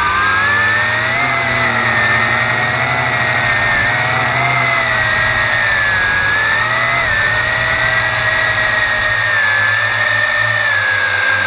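Tarantula X6 quadcopter's motors and propellers whining loudly, heard from the drone's own onboard camera. The pitch wavers up and down as the motors adjust thrust in flight, sinking slightly near the end.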